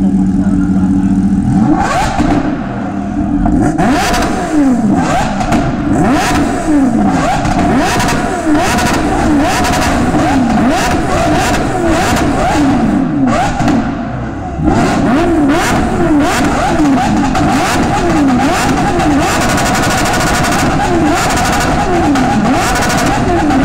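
Kawasaki Ninja H2R's supercharged inline-four, parked, idling and then revved again and again in quick throttle blips, each rev rising and dropping straight back. The revving starts about two seconds in and pauses briefly about halfway through.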